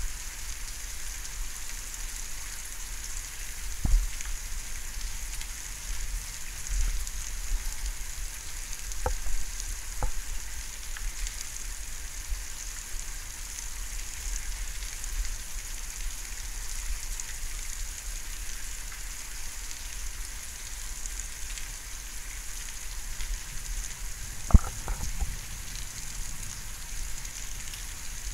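Steady thunderstorm rain hissing, with a few sharp taps; the loudest tap comes about 24 seconds in.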